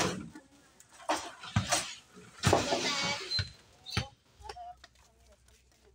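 Plastic crates full of glass soda bottles knocking and clinking as they are stacked and moved on a hand truck: a handful of separate knocks about a second apart, with a longer rattle of bottles around the middle.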